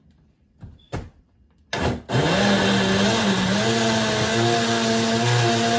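Personal bullet-style blender starting up about two seconds in, its motor whine rising in pitch for a second or so and then running steadily as it purees an onion, garlic and oil marinade. Before it starts, a few light clicks and a knock as the cup is set on the base.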